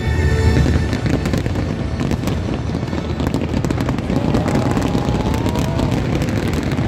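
Aerial firework shells bursting in a dense barrage: a continuous crackle of many small reports with no pauses.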